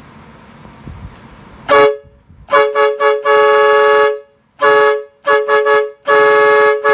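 12V compressor-fed dual-trumpet chrome air horn sounding in a run of about nine blasts, some short toots and some held for up to a second, two notes sounding together, starting a couple of seconds in.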